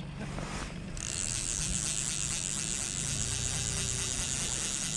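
Small outboard motor running on a boat. Over it, from about a second in until near the end, a fly reel's ratchet clicks fast and continuously as line is wound in, then stops abruptly.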